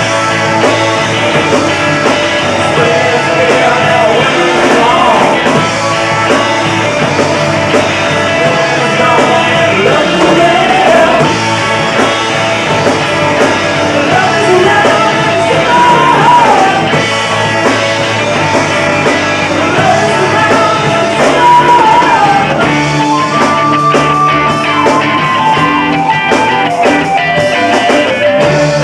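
Rock band playing live: electric guitar and drums, with a man singing lead.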